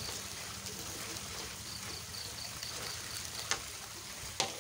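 Clear plastic bag rustling and crinkling as a heat gun is pulled out of it, with a couple of sharper crackles near the end.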